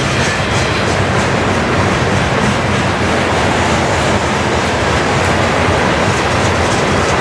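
Freight train's tank cars and boxcars rolling past, a steady noise of steel wheels on rail.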